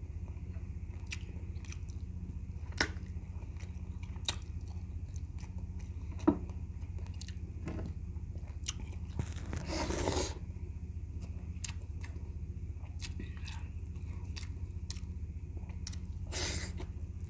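Close-up eating sounds of a man eating goat trotters in sinigang by hand: chewing and lip smacks with scattered sharp mouth clicks, over a steady low hum. A longer noisy burst comes about ten seconds in, and another near the end as he bites into a boiled pechay leaf.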